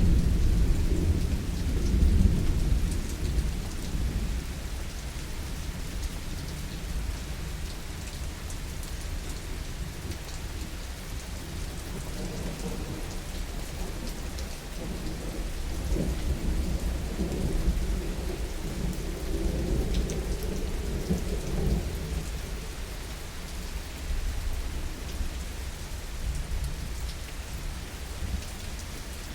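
Heavy rain falling steadily with rolling thunder. A loud rumble at the start dies away over the first few seconds, and a second long rumble swells and fades about halfway through.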